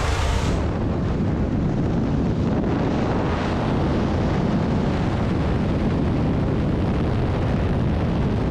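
Wind and propeller-engine noise at the open door of a jump plane in flight, a steady rush with the wind buffeting the microphone. A louder gust comes in the first half second.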